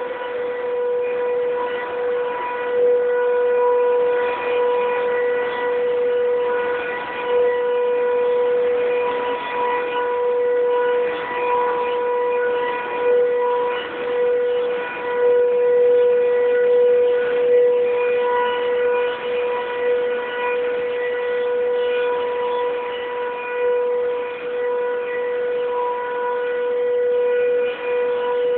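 Passenger coaches of a train rolling slowly past, with a steady high whine held at one unchanging pitch throughout, over a rumbling, clattering background.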